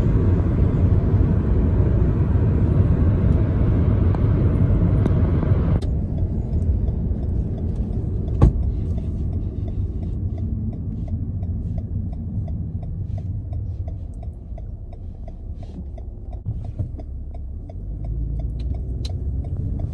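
Road noise and rumble inside a car's cabin at speed, whose upper hiss drops away suddenly about six seconds in. After that, the car's turn-signal indicator ticks about twice a second for most of the rest, with one sharp click near the middle. The rumble swells again near the end.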